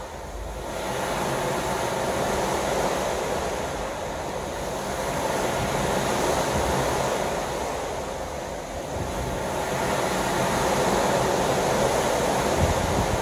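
Sea water washing in a steady hiss that swells and eases about every four seconds, with wind buffeting the microphone.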